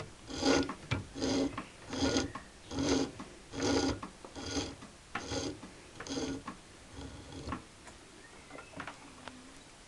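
Wire stripper machine stripping the insulation off scrap wire: a rhythmic rasping click about once every three-quarters of a second, weakening and stopping about seven and a half seconds in.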